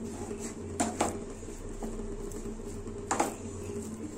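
Wooden spatula stirring and scraping a thick coconut and milk-powder mixture in a nonstick pan, with a few sharp knocks of the spatula against the pan, once about a second in and again just past three seconds.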